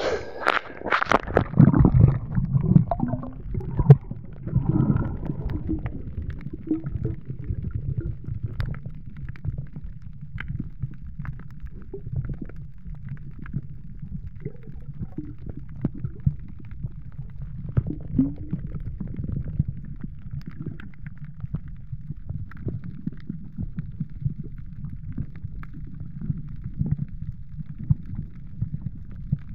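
Water splashing and churning for the first few seconds as the diver goes under, then a steady, muffled low rumble with scattered faint clicks, heard from under the water.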